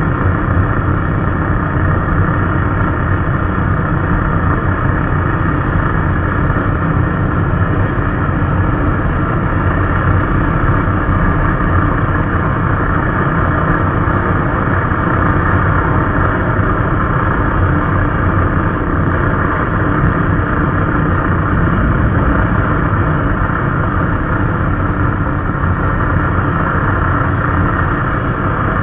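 MIG welding arc on aluminum in spray transfer, a steady, even noise with no crackle or popping, slowed down along with the slow-motion footage so it comes out as a deep, unbroken drone.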